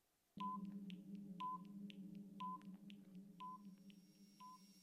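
Electronic sound effect: a short beep about once a second, five in all, with faster faint ticks between them, over a low steady drone. It all fades away toward the end, like a countdown timer.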